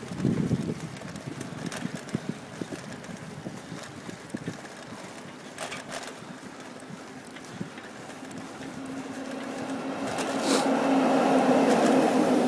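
Bicycle riding sounds, with wind buffeting the microphone and scattered rattles and clicks. From about eight seconds in, a steady engine drone grows louder as a motor vehicle approaches, and it is loudest near the end.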